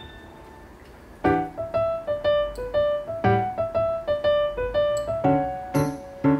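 Background piano music: a gentle melody that comes in about a second in and carries on as a steady run of single notes and chords.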